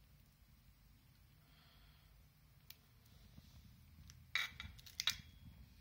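Handling noise from a tape-wrapped SBT-10A Geiger counter tube being turned over in the hand: faint rubbing over a low room hum, then two short, louder scrapes about four and five seconds in.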